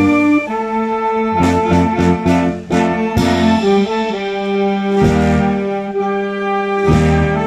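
Military wind band of saxophones and brass playing a sustained chordal passage, with several sharp accents in the first half.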